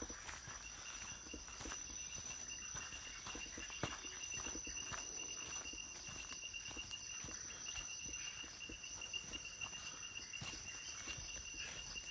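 Forest insects calling: one steady high shrill note and a lower, rapidly pulsing trill. Scattered footsteps crunch on the leaf-littered dirt trail.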